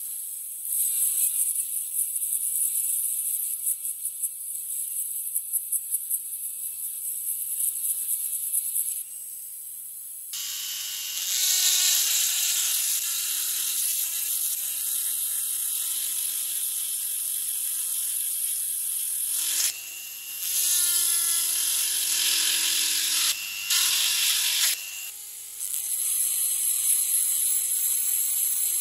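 Handheld rotary tool spinning at high speed and grinding the steel of a hammer head, first with a small bit and then with an abrasive stone. The steady high whine with a grinding hiss changes tone and briefly stops several times as the tool is pressed on and lifted off.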